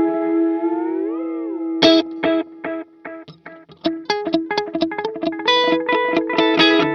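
Electric guitar played through a Sonicake Echo Rain delay pedal. A held note is bent up and back down about a second in, followed by a quick run of picked single notes.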